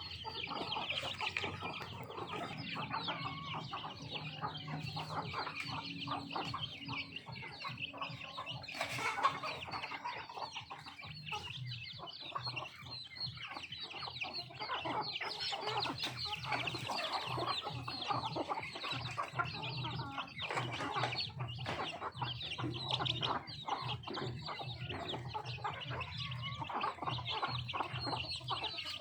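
Chickens clucking continuously while feeding, with many short clicks and taps scattered throughout.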